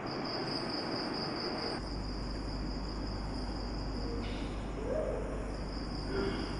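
Steady whir of ceiling and wall fans, with a constant high, thin trill above it. A low steady hum sets in about two seconds in.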